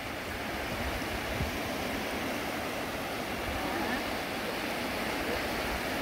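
Small sea waves washing in and out over a shallow sandy shore, a steady wash with no single break standing out.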